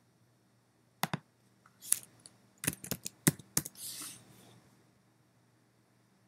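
Clicks and keystrokes on a MacBook Pro's trackpad and keyboard: a couple of single clicks, then a quick run of keystrokes typing a short word, followed by a brief soft hiss.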